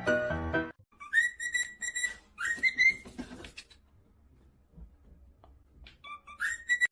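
High whistling: three calls, each sliding up and then holding a high note, about a second in, around two and a half seconds in, and near the end, with quiet between. A piano tune cuts off just before the first call.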